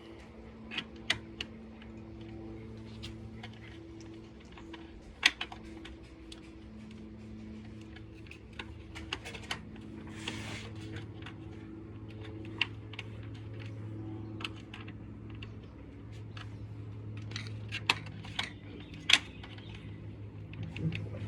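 Scattered light clicks and taps of small hard objects being handled, over a low steady hum, with a brief hiss about ten seconds in.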